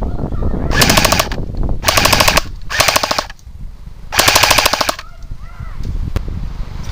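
Airsoft guns firing on full auto: four short bursts of rapid shots, each about half a second long, the last a little after the first three.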